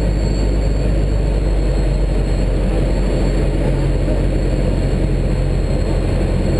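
Steady drone of a Socata TB9 Tampico's four-cylinder Lycoming piston engine and propeller, heard inside the cabin in flight.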